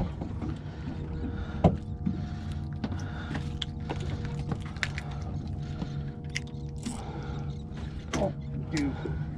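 Sharp clicks and knocks of fishing tackle being handled on a boat deck as a rig is unhooked from a fluke, the loudest a single click about two seconds in. A steady low engine hum runs underneath.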